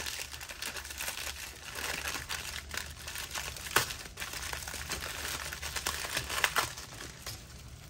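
Thin black plastic bag crinkling and rustling as hands unwrap the figure inside it. A few sharper crackles stand out, about four seconds in and again around six and a half seconds.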